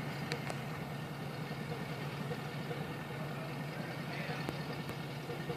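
Single-engine cabin cruiser's engine running slowly in reverse as the boat pushes back through harbour ice: a steady low drone, with a few faint clicks.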